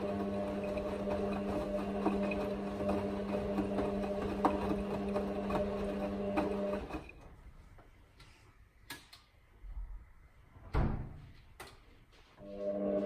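Hotpoint WM63P washing machine's drum motor running with a steady hum while it tumbles a load of towels in the wash, stopping about seven seconds in. A quieter pause follows with a few sharp knocks, then the motor starts again near the end, as the drum turns back and forth during the wash.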